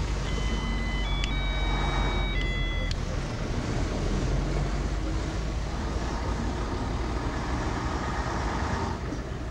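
Bus engine running and road rumble, heard from inside the moving bus. In the first three seconds a few high steady tones sound together and step between pitches.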